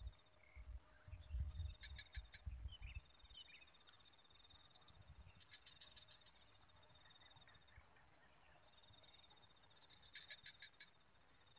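Faint insect chorus chirring steadily in a grassy swamp, crickets among them, with short trains of rapid chirps recurring about every four seconds. A few low rumbles on the microphone come in the first three seconds.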